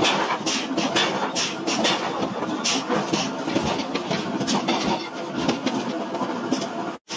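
Heavy forging machinery running steadily, with frequent irregular metallic clanks and knocks, as a horizontal punch drives through a red-hot iron block. The sound cuts out for an instant near the end.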